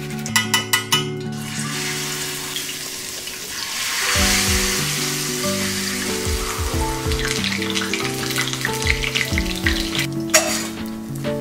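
Hot oil sizzling as battered zucchini blossoms deep-fry in a small stainless saucepan, with a few quick taps at the start, under background music.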